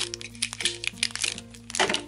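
Crinkly blind-bag wrapper from a Shopkins Season 5 pack being handled and crumpled, with small clicks from the snap-lid plastic container. The loudest burst of crinkling comes near the end. Background music plays throughout.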